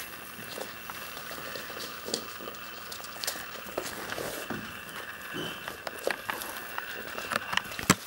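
Puppies' claws clicking and pattering on a hardwood floor as they scamper about, with a cluster of sharper clicks near the end, over a steady background hiss.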